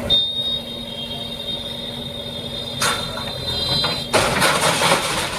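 Heavy machinery clearing encroachments: a steady high-pitched metallic squeal, a sharp knock about three seconds in, then a loud burst of harsh noise for the last second or so.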